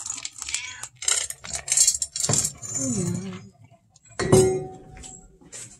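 Dry cat food kibble rattling and clinking against a feeding bowl as it is poured out, with a sharp clank that rings briefly about four seconds in.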